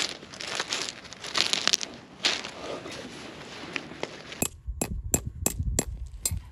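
Tent pitching: fabric rustling and crinkling, then a quick run of about ten sharp knocks a little over four seconds in.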